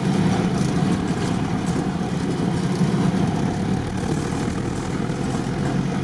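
Engine of a modified UAZ off-road vehicle running steadily as it drives slowly, a steady low drone.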